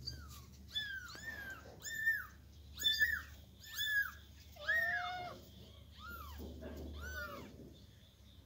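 Persian kitten mewing loudly and repeatedly: short, high cries that rise and fall, about one a second, with one lower, longer call about halfway through. The cries thin out over the last couple of seconds.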